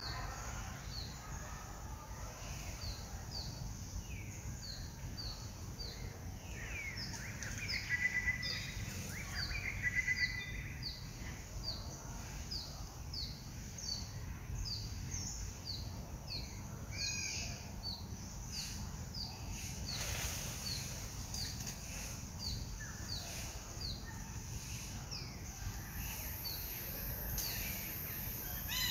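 Forest birdsong: a bird repeats a short, high, falling chirp about twice a second, with a few louder, lower calls about a third of the way through.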